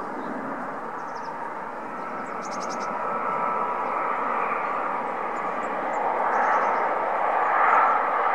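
Airbus A330 twin-engine jetliner on final approach: a steady jet engine rumble with a thin whistling whine, growing louder as it comes close and touches down near the end.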